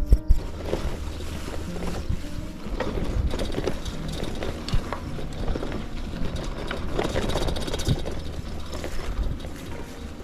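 Wind rushing over the microphone and a bicycle rattling and rumbling as it is ridden along a rough, grassy dirt trail, with small clicks and knocks from the bike throughout. A couple of sharp knocks sound at the very start.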